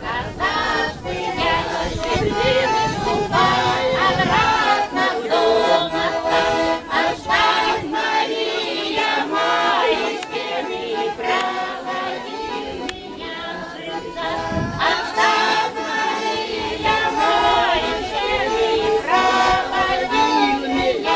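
Group singing of a folk song to garmoshka (Russian button accordion) accompaniment, several voices together over the accordion's sustained chords.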